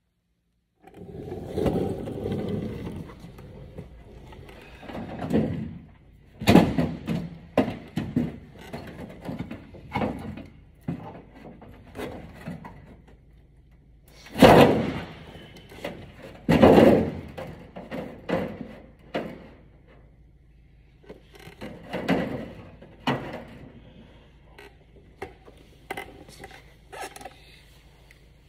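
Irregular knocks, clunks and scraping from hand work on an aircraft fuselage's aluminium skin and riveted structure, with sharper bangs about 6 s, 14 s and 17 s in.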